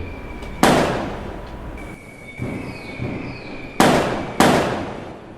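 Fireworks exploding: three loud bangs, each fading away, with a smaller pop between the first and the second.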